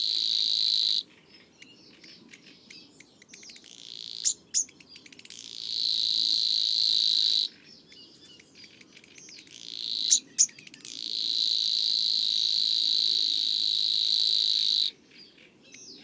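Savi's warbler singing its reeling song: a high, even, insect-like buzzing reel held for several seconds at a time, three times, with short breaks filled by scattered ticks and a few sharp louder notes.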